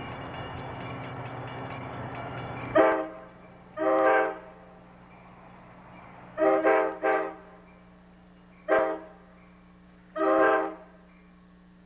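Amtrak Pacific Surfliner locomotive's Nathan K5LA five-chime air horn sounding a series of about six blasts, some short and some longer, as the train approaches. Underneath is a steady noise that cuts off suddenly about three seconds in.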